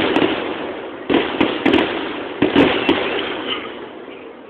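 Fireworks bursting in quick clusters of bangs, each cluster trailing off. Salvos come at the start, about a second in and about two and a half seconds in, then fade toward the end.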